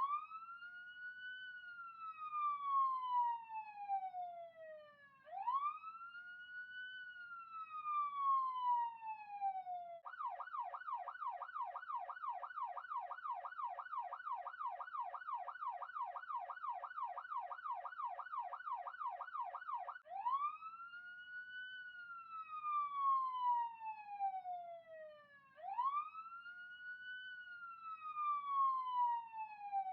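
Police siren in its wail tone, each sweep rising quickly and falling slowly, about every five seconds. About ten seconds in it switches to a fast yelp of about three sweeps a second, and ten seconds later it goes back to the slow wail.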